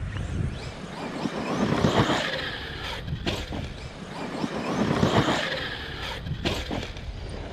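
Electric RC truck, an Arrma Kraton EXB, driving on dirt: brushless motor and tyre noise that swells twice as it passes, with a couple of sharp clicks. The loosened differential lets it drive straight rather than spinning its wheels.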